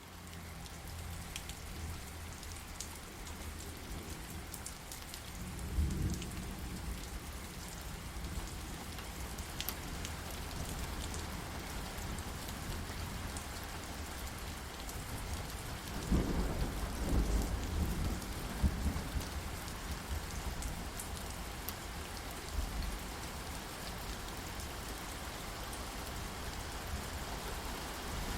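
Steady rain with scattered drop patter, and thunder rumbling twice: briefly about six seconds in, then longer and louder from about sixteen seconds.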